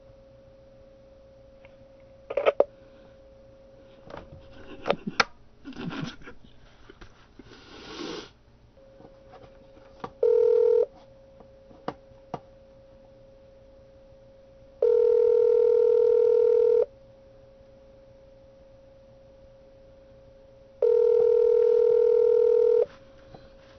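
Telephone ringback tone heard down a phone line: a brief ring about ten seconds in, then two steady rings of about two seconds each with four seconds between them. This is the line ringing at the far end while the call waits to be answered. Before the rings come scattered clicks and crackle on the line.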